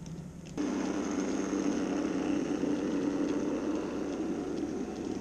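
N-scale model freight train running past on the track: a steady motor hum and rolling wheel rumble with faint clicking, starting abruptly about half a second in.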